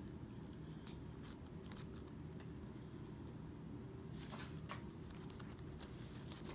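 Slime being stretched and squashed by hand, giving faint soft squishing and crackling sounds now and then over a low steady hum.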